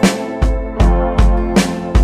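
Instrumental background music with a steady beat, a new note or chord struck about two and a half times a second.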